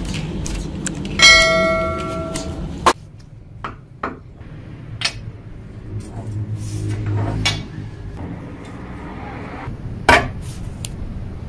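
A piece of steel struck once, ringing like a bell for about a second and a half. Scattered metal clanks and knocks follow as steel parts are handled, with a louder knock near the end.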